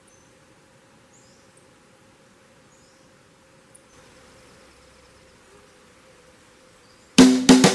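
Faint forest ambience: a steady insect buzz with short high bird chirps every second or so. Near the end, loud drum-kit music starts.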